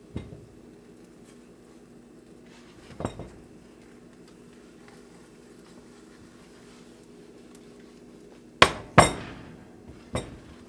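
A cooking utensil knocking against a cast iron skillet: a couple of light knocks, then two loud ringing clanks close together near the end, over a faint steady hum.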